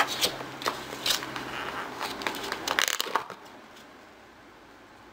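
Takeout food containers being handled, a run of sharp clicks and crinkling that stops a little over three seconds in.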